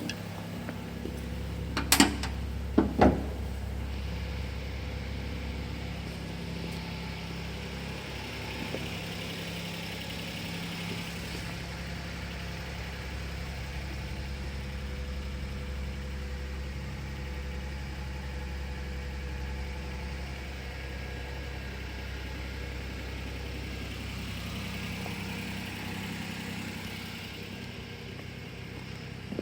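Daihatsu Hijet Truck's 660 cc three-cylinder engine running steadily at a low, even speed. Two sharp clacks come about two and three seconds in.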